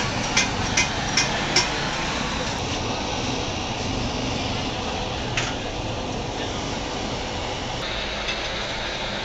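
Gas soldering torch hissing steadily while a filler neck is soldered onto a radiator's top tank. In the first two seconds come five light, evenly spaced taps, about two and a half a second.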